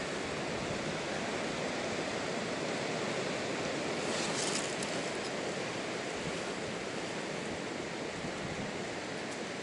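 Steady rushing wind noise with no distinct events.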